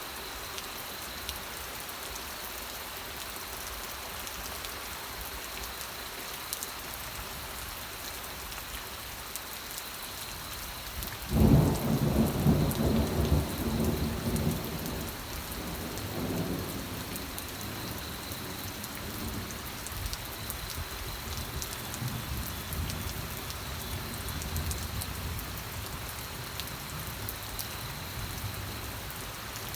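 Steady rain falling, with a sudden clap of thunder about eleven seconds in that rumbles on and fades over several seconds.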